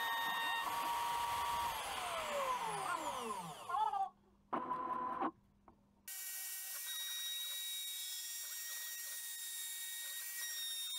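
Small CNC milling machine's spindle whining steadily as its end mill cuts acrylic. About two seconds in, the whine slides down in pitch, then breaks off into a near-silent gap with one short tone. From about six seconds in, a steady, higher, thinner whine runs again.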